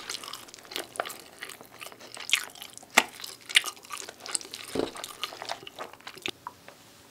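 Close-miked chewing and biting of beef pizza: irregular sharp crunches and wet clicks that stop about six seconds in.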